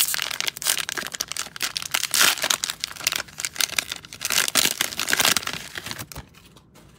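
Plastic wrapper of a Panini Mosaic cello trading-card pack crinkling and tearing as it is ripped open and handled by hand: dense irregular crackling that dies down about a second before the end.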